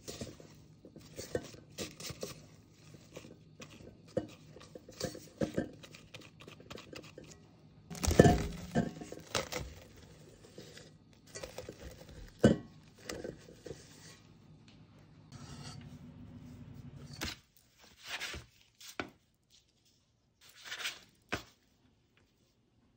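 Bread dough being handled in a metal mixing bowl and on a baking sheet: irregular scrapes, knocks and rustles, with one loud knock about eight seconds in and a brief low hum later on.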